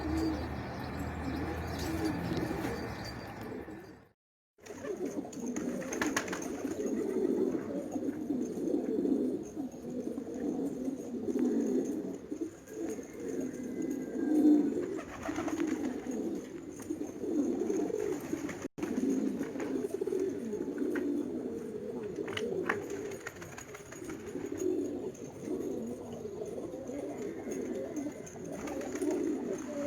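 Domestic pigeons cooing, several at once, in a continuous overlapping chorus, with a brief break about four seconds in.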